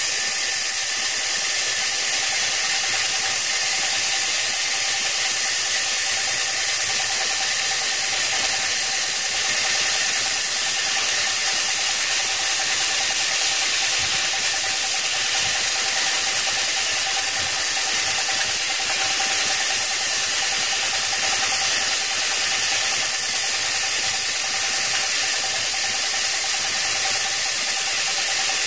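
Log sawmill running steadily as its saw carriage travels along a log, cutting a board, with a steady high whine throughout.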